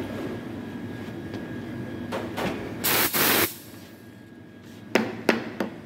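Espresso machine giving a short hissing burst, about half a second long, around three seconds in. Near the end come three sharp knocks.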